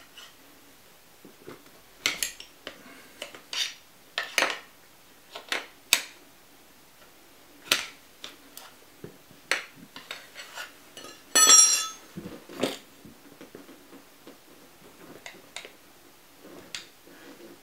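Steel tyre levers clinking and clacking against an electric scooter's wheel rim while a solid tyre is levered onto it: a dozen or so separate sharp metallic clicks at irregular intervals. A little past halfway comes one louder, longer ringing metal clatter as the levers come out.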